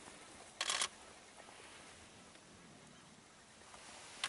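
A short rustle of handling noise on the recording device, rubbing against clothing or the vehicle, a little over half a second in, then faint steady hiss.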